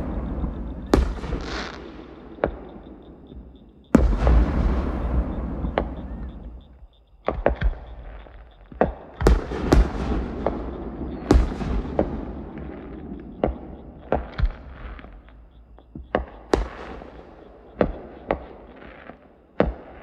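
Fireworks display with aerial shells bursting: sharp bangs with long rumbling echoes. A big boom comes about four seconds in, and from about seven seconds on a rapid run of cracks and pops follows.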